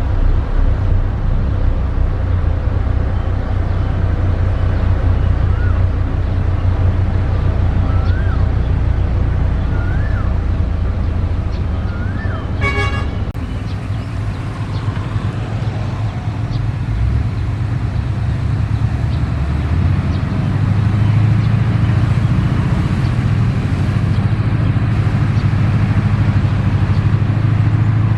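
Heavy diesel engine of road-construction machinery running steadily, with a short horn toot about halfway through and a few short high chirps before it. The engine grows louder in the last third, as if working under more load.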